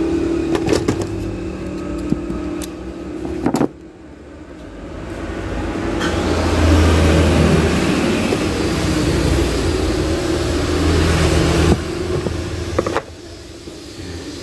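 A motor vehicle engine running, growing louder from about four seconds in and holding for several seconds before cutting off suddenly near the end, with a few sharp clicks in the first second.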